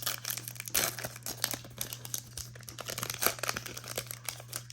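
Crinkling and tearing of a trading-card pack's plastic wrapper being handled and opened, in many irregular crackles, over a steady low hum.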